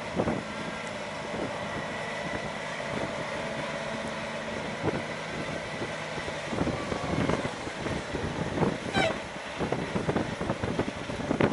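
Kenworth cabover truck's diesel engine running at low speed as it manoeuvres an oversize load, a steady low hum with occasional knocks and clunks.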